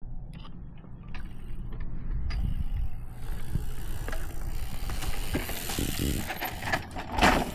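Specialized Turbo Levo electric mountain bike rolling down a dirt trail: steady tyre and wind rumble with the drivetrain and freehub rattling and ticking, and a louder clatter near the end.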